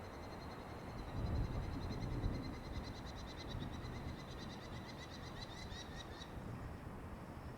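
A bird calling in a fast, high trill of rapidly repeated notes that quickens and then stops about six seconds in, over a low outdoor rumble.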